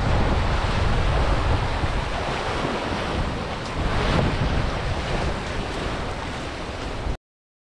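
Wake water rushing and churning behind a Pogo 3 Mini 6.50 sailboat moving fast, with wind buffeting the microphone. The sound cuts off suddenly about seven seconds in.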